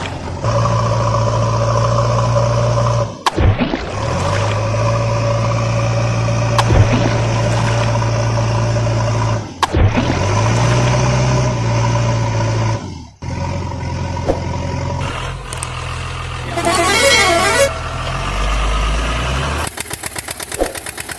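Truck engine and horn sound effects dubbed over the toy vehicles: long steady pitched stretches with abrupt cuts between them, then a fast rhythmic engine clatter starting near the end.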